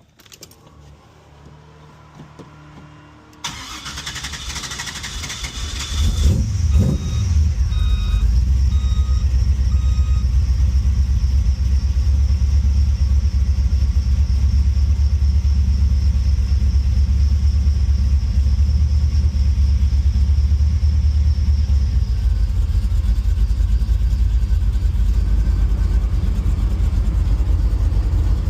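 LS V8 in a Monte Carlo SS cranked for a few seconds, catching with a brief rev and then idling loudly, its note dropping after about 16 seconds. Over the idle a steady high-pitched squeal comes from the accessory belt drive, which the mechanic puts down to either an idler pulley or the belt tensioner.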